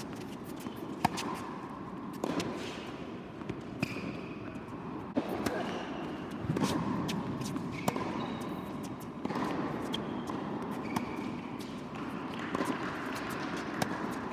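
Tennis rally on an indoor hard court: a string of sharp racket strikes and ball bounces, with a few short high squeaks of shoes on the court.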